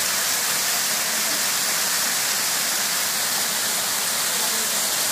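Small waterfall cascading down a rock face: a steady, even rush of falling water with a strong hiss.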